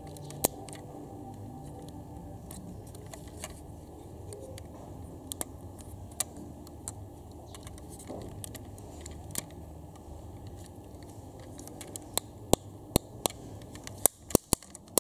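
Sharp clicks and small knocks from a diecast model car being handled, its opening doors and metal-and-plastic parts snapping and tapping, more of them near the end, over a steady low background noise.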